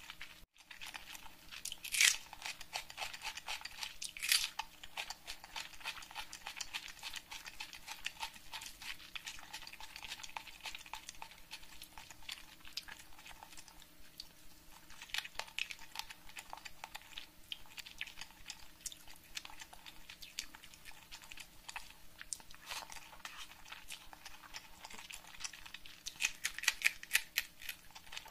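Close-miked eating sounds: chewing of rice with egg curry and fried fish eaten by hand, with many sticky, crackling mouth clicks. Louder crunchy bites come about two seconds in, about four seconds in, and several near the end.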